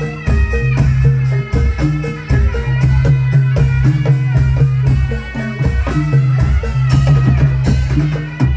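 Live Javanese folk music accompanying a dawangan performance. Drums beat a steady rhythm over sustained low notes and a layered higher melody.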